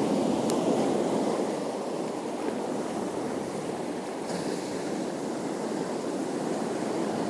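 Steady wash of sea surf, with wind.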